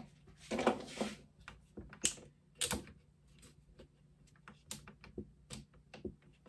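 Small plastic spring clamps clicking against the thin wooden stringers and ribs of a model kayak frame as they are set and adjusted: a handful of sharp, irregular clicks and light knocks, with a short scuffle about half a second in.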